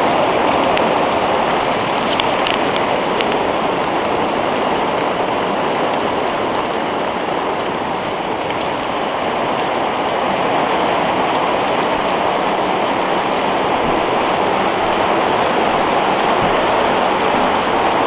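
Hail storm heard from inside a lean-to: a dense, steady hiss of hailstones and rain pelting the roof, easing slightly about eight seconds in.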